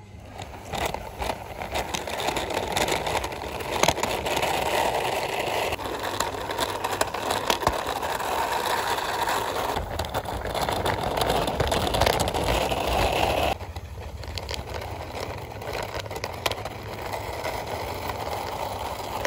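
Plastic wheels of a toy bullet train pushed along a rough stone ledge: a steady rolling rattle with scattered small clicks, turning suddenly quieter about two-thirds of the way through.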